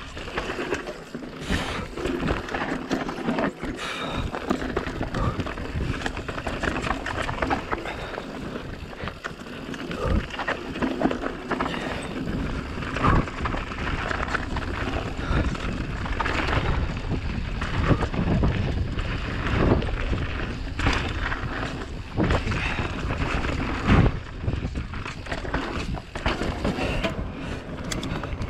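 Giant Reign Advance enduro mountain bike descending a rough dirt trail at speed: a constant rush of wind and tyre noise on a chin-mounted GoPro, broken by many knocks and rattles from the bike over bumps, with a few sharper hits now and then.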